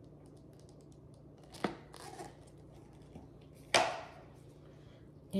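A plastic paint cup being handled and set down: two sharp knocks, the second louder and about two seconds after the first, with a light crinkle between them. The pour of the thick acrylic paint itself is barely heard.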